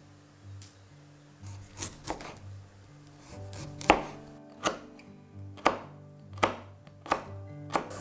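Kitchen knife cutting broccoli stalks on a wooden cutting board, each cut ending in a sharp knock of the blade on the board. A couple of lighter cuts come first, then a steady run of louder ones roughly once a second from about halfway.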